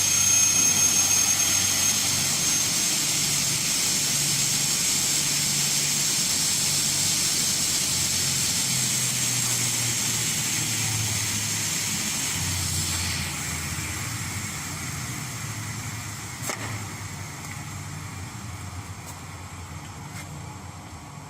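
Double-head aluminium cutting saw running: a loud, high whine from the spinning saw motors and blades that starts abruptly and slowly dies down over the second half. There is one sharp click about three quarters of the way through.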